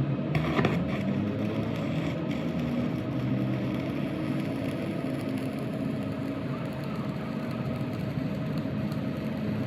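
A steady mechanical running hum, like a motor or engine, with a few sharp knocks in the first couple of seconds.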